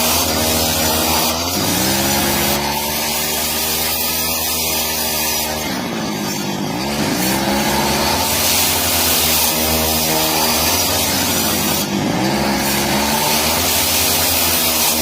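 A handheld power tool's motor running continuously while working wood, its pitch dipping sharply and recovering several times as it comes under load.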